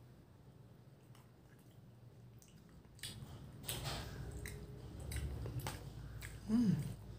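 A person chewing a mouthful of food, with small clicks and scrapes of a metal spoon on a plastic plate from about three seconds in. Near the end comes a short hummed sound from the eater.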